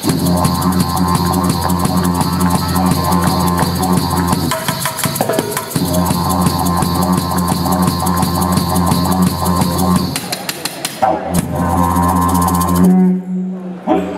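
Didgeridoo drone, a low steady note with strong overtones, played over fast hand-percussion hits. The drone drops out around four seconds in and again near ten seconds, then stops briefly near the end.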